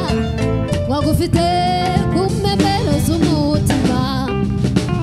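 A woman singing a live song with wavering, held notes, backed by a band with keyboard.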